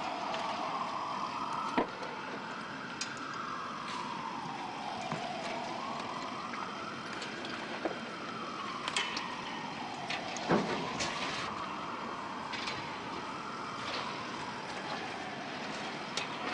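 A siren wailing slowly, its pitch rising and falling about every five seconds, over steady street noise. Scattered sharp knocks cut through, the loudest about two seconds in and just past the middle.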